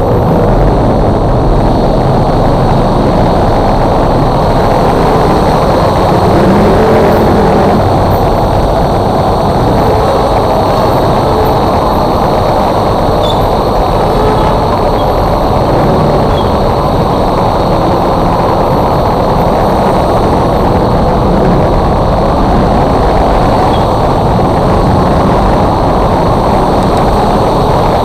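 Motorcycle riding in slow city traffic: the bike's engine running under a steady, dense rumble of wind and road noise on the microphone.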